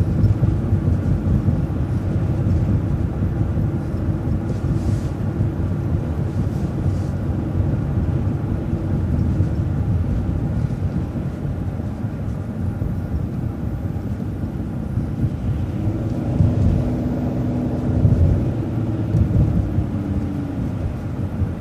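City transit bus running along a street, heard from on board: a steady low engine and road rumble, with a pitched engine tone that rises and then fades for a few seconds near the end.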